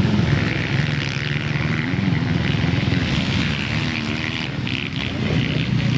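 Motocross motorcycle engine running on the track, its pitch rising and falling as the throttle is worked.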